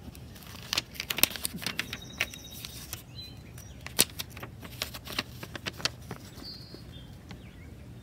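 Rapid, irregular crackling clicks of handling noise, thickest in the first half and thinning out after about six seconds, with a faint bird chirp now and then.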